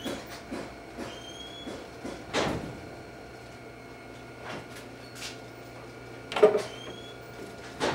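Clear plastic enclosure panels of a bench test cell being handled and set in place: a string of irregular clicks and knocks, the loudest about six and a half seconds in, over a faint steady hum.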